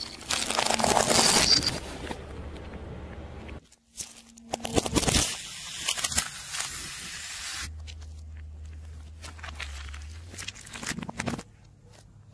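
Car tyre crushing objects on asphalt: a loud stretch of cracking and crunching plastic for about three seconds as a plastic toy breaks under it, then, after a brief near-silent gap, another loud crunching stretch. Softer crackling follows, with one louder crackle near the end as a gel-bead mesh stress ball is squashed.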